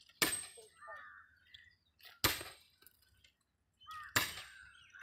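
Sledgehammer striking a chisel held on the steel rail, trimming excess metal from a freshly poured, still red-hot thermit weld. Three sharp metallic blows about two seconds apart, each with a short ring.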